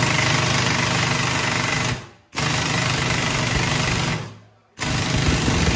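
Pneumatic impact wrench running in bursts of about two seconds each, loosening bolts during gearbox teardown. A third burst starts about five seconds in.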